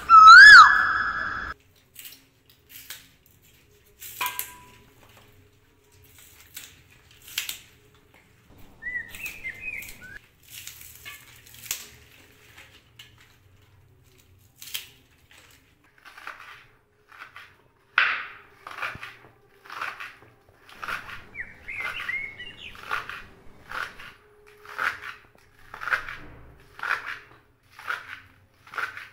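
A loud whistle for about the first second and a half. Then scattered small clicks and rustles as green onion stalks are handled, and from about two-thirds of the way through, a kitchen knife chopping green onions on a wooden chopping board in an even series of chops, roughly one a second.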